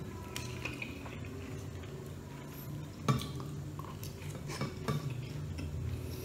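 Bamboo barbecue skewers clattering and clicking against a metal plate, with one sharp knock about three seconds in and a few more clicks near the end. A steady low hum from an electric fan runs underneath.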